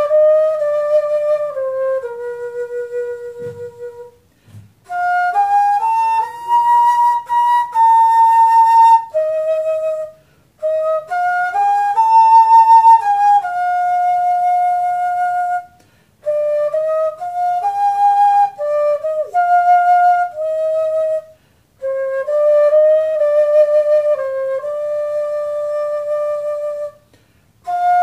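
Homemade PVC-pipe transverse flute played solo: a simple melody of held notes, in phrases of a few seconds each, broken by short breath pauses about every five seconds, with a breathy edge on some phrases.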